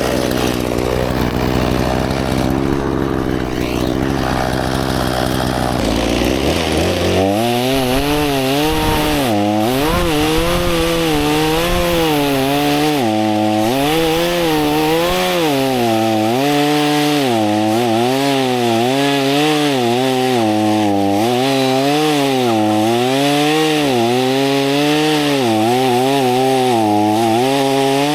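Two-stroke chainsaw idling. About seven seconds in it is throttled up and cuts wood, its engine note dipping and rising over and over as the chain bites.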